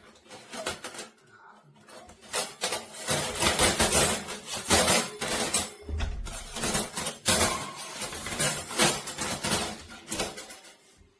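Thin stainless-steel panels and grate of a folding fire pit clattering and clinking as they are handled, a dense run of metal knocks with a couple of short lulls.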